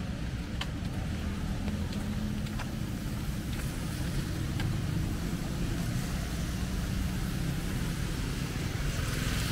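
Steady low rumble of street traffic with a hiss above it, and faint ticks about once a second.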